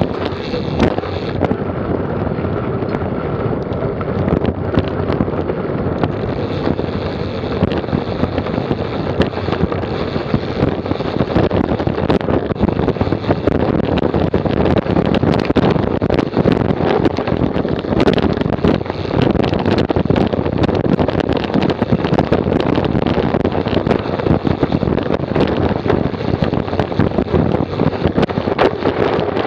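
Mountain bike's rear end heard from a camera mounted on the frame while riding fast over a rough dirt trail: the rear tyre rolling on dirt and gravel, with the chain and drivetrain rattling in constant small knocks over the bumps. Wind noise on the microphone runs underneath.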